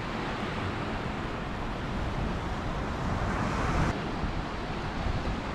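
Wind buffeting the microphone over the steady wash of surf on a rocky shore. A louder rush builds about three seconds in and stops abruptly just before four.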